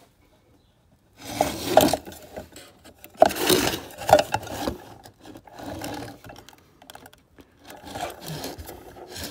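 Rough rubbing, scraping noise in about five bursts of a second or so each.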